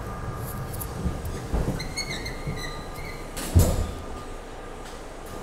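Doors of an R32 subway car at a station stop: a short two-note door chime, then the sliding doors bang shut with a thump about three and a half seconds in, over the steady hum of the car's equipment.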